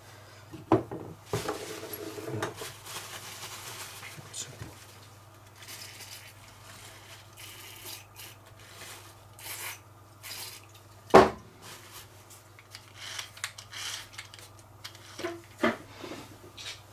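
Handling sounds from cleaning a small brushed motor from a cordless screwdriver: paper towel rustling and small scattered clicks and knocks, with one sharp knock about eleven seconds in.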